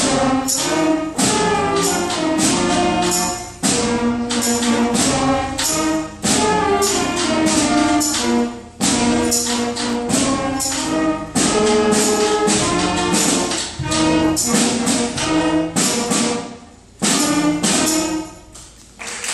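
Fifth-grade beginner concert band playing a piece: held brass and wind chords punctuated by sharp percussion strikes. The music stops near the end and applause begins.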